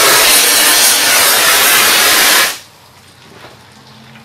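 Gas heating torch running with a steady, loud hissing flame, heating a bearing mounted on a taper sleeve so it will expand and come free under the puller. The hiss cuts off suddenly about two and a half seconds in, leaving a faint low shop hum.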